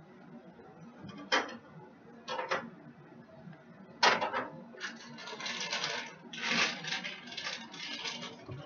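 Kitchen utensils and cookware being handled: a few sharp clicks and knocks, the loudest about four seconds in, followed by a few seconds of dense rattling clatter.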